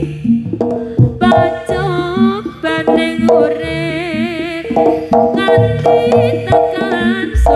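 Live East Javanese jaranan gamelan music: sharp hand-drum strokes and deep held tones under a strongly wavering melody line.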